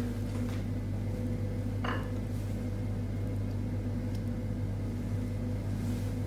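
Steady low hum of a running kitchen appliance, with one brief light clink about two seconds in.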